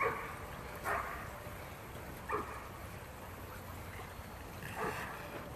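A dog barking four times, short barks spread over a few seconds, over the steady rush of a shallow creek running over rocks.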